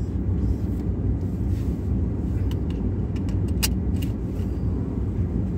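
Truck engine idling, a steady low rumble heard from inside the parked cab, with a few light clicks around the middle.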